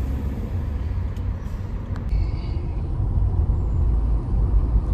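A car driving along, heard from inside the cabin: a steady low rumble of road and wind noise.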